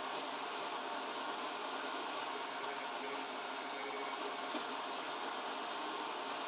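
A 3D printer running mid-print, with a belt drive filament feeder: a steady, even hiss with no distinct strokes.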